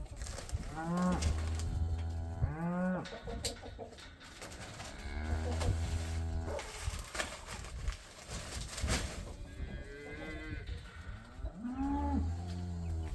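Cattle mooing: several long, deep moos, one after another a few seconds apart.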